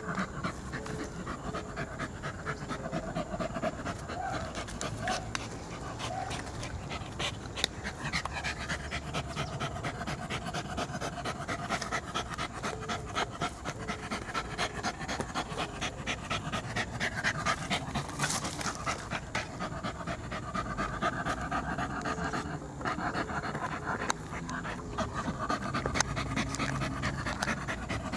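Poodle panting rapidly as it digs with its head in a hole in the dirt.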